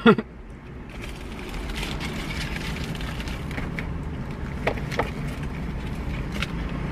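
Foil and paper food wrapper rustling and crinkling as it is handled and folded, with a few light clicks, over a steady low hum inside a car cabin.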